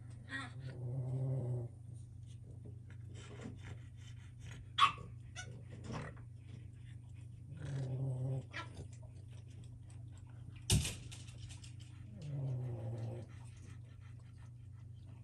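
Boston Terrier puppies play-growling: three growls of about a second each, spaced a few seconds apart. Two sharp knocks come between them, the second the loudest sound.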